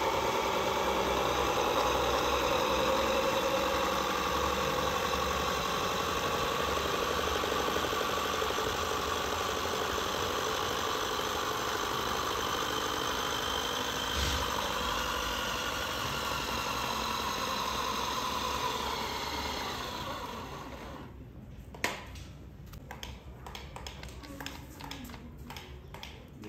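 Electric motor and gearbox of a 1:18-scale RC Toyota Land Cruiser whining steadily at full power as its wheels spin in a burnout. About twenty seconds in it winds down and stops as the motor dies, followed by a sharp click and scattered faint crackles.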